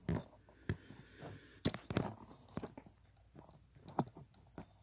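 Scattered, irregular light clicks and knocks of handling noise close to the microphone, thinning out near the end.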